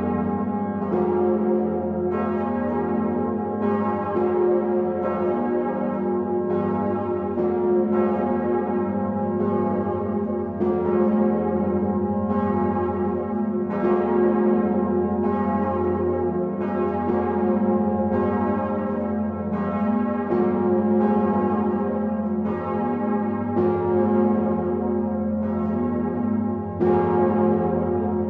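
Several large bronze swinging bells of Notre-Dame de Paris ringing together in full peal (plenum), their clappers striking in overlapping strokes about once a second over a deep, sustained hum.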